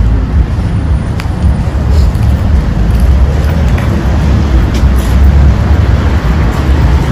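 Outdoor street ambience: a steady low rumble of road traffic, with a few faint clicks.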